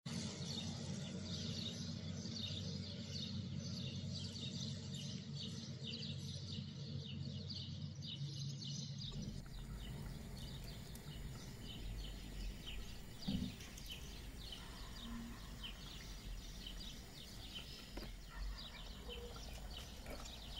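Quiet background of small birds chirping, many quick high chirps, over a steady low hum. The hum changes at a cut about halfway through.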